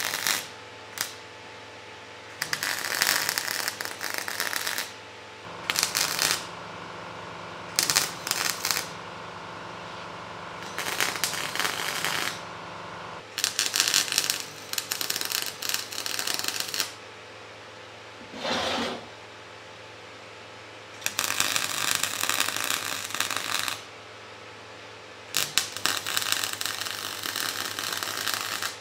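Electric arc welding on steel grate bars: about ten runs of crackling and sizzling from the arc, each from a moment to a few seconds long, separated by pauses where a steady low hum remains.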